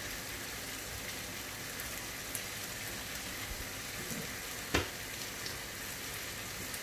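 Steady sizzling of marinated chicken cooking covered in a little oil and its own juices in a pan on the stove, with one sharp knock about two-thirds of the way through.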